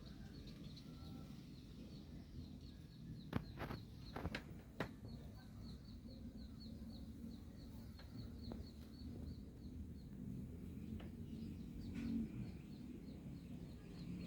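Ceiling fan running, with a short high squeak repeating evenly about four times a second over a low steady rumble. A few sharp clicks come about three to five seconds in.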